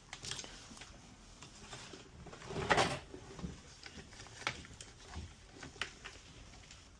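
Small plastic clicks and handling noise as a wire connector is worked loose from an espresso machine's control board, with a louder brief rustle nearly three seconds in.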